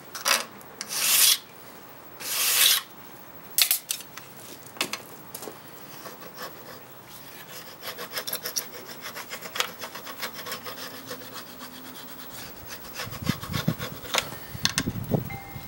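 Steel burnisher rubbing along the steel edge of an old Japanese saw-blade scraper, turning a new hook. A few loud, quick strokes in the first three seconds or so are followed by lighter rubbing with scattered clicks, and a few low knocks near the end.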